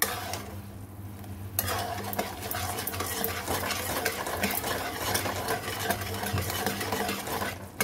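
Metal spatula stirring and scraping around a non-stick kadhai full of simmering sugar syrup as the food colouring is mixed in. The stirring starts about a second and a half in and stops just before the end.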